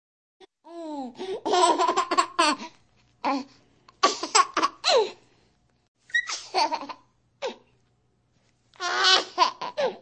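A small child laughing in several bouts of quick, high-pitched ha-ha-ha, with short pauses between them.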